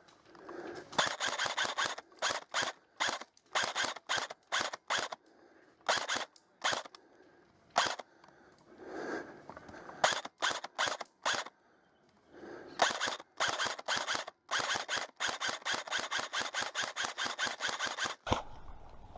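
Airsoft rifle firing in short strings of shots with pauses between, then a long, fast, even run of shots near the end.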